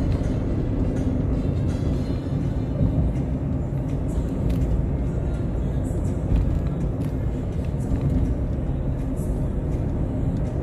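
Road and engine noise heard inside a moving car's cabin, a steady low rumble, with music playing along with it.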